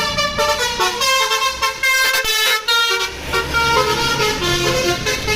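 Basuri 'telolet' multi-tone bus air horn playing a tune, its notes jumping quickly from pitch to pitch.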